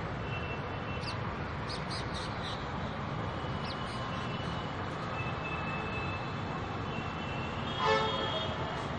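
Steady background traffic noise from surrounding roads, with a few short high chirps in the first few seconds. A brief horn tone sounds near the end.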